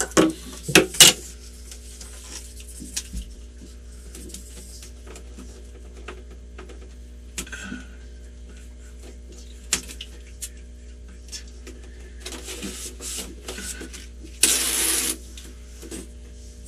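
Shower-curtain ceiling track being handled and pressed up against the ceiling with mounting tape: a quick run of clicks and taps in the first second, then scattered light knocks. Near the end there is a brief rubbing scrape as it is pressed into place, over a faint steady hum.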